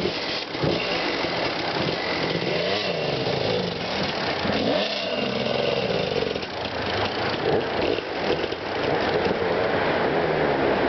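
Dirt bike engine revving up and down again and again, the pitch rising and falling every second or so as the bike is worked over rough ground.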